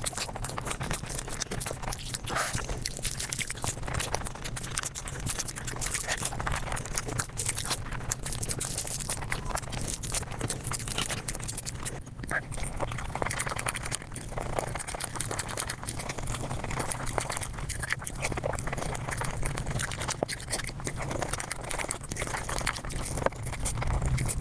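Eating sounds, chewing and crunching on food, played back at five times speed, so the bites and chews run together into a dense, rapid crackle. There is a brief break about halfway through.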